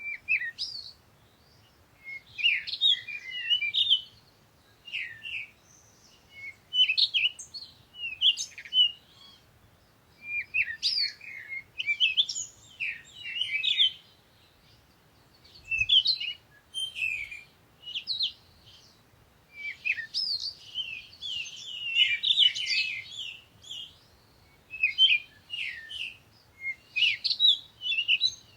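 Small songbirds chirping and singing in quick, high-pitched phrases that come every second or two.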